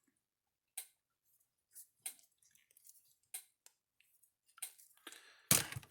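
Scattered sharp clicks and snips of a hand tool working a battery lead wire while a new spade connector goes on, with a louder crunch near the end.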